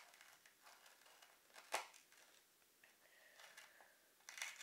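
Small metal tool scratching and poking through skateboard grip tape over the bolt holes to clear them out: faint scraping, with a sharp tick just under two seconds in and a few clicks near the end.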